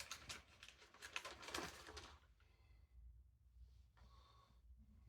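Faint rustling and handling noises, such as paper and barbecue parts being moved, for about the first two seconds, then near silence.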